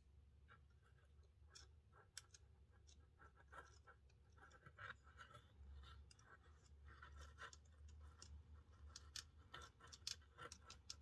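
Faint scratching and light clicks of fingers handling the small plastic and metal parts of an HO-scale model locomotive chassis.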